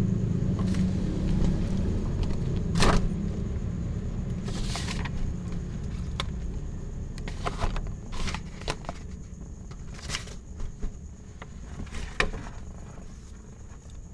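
A low rumble that slowly fades, with scattered short clicks and rustles, about six in all, from the kitten moving about on the paper sheet and being handled.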